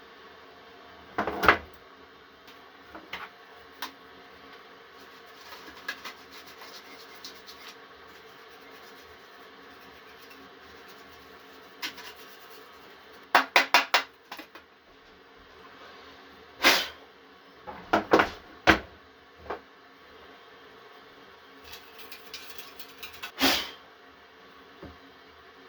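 Scattered knocks and clicks of a PC power supply unit being handled and taken apart, including a quick run of four clicks about halfway through and several sharper knocks later on.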